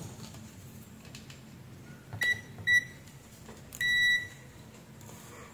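Digital multimeter's continuity beeper sounding as the test probes touch the flashlight's tail-cap spring and its metal body: two short high beeps about half a second apart, then a longer beep of about half a second about four seconds in. The beeps signal continuity between spring and chassis.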